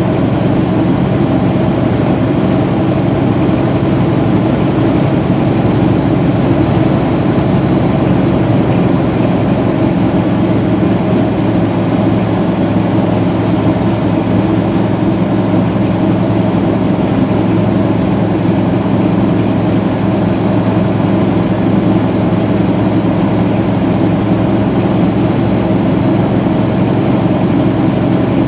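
Semi-truck's diesel engine droning steadily under road noise, heard from inside the cab at highway speed.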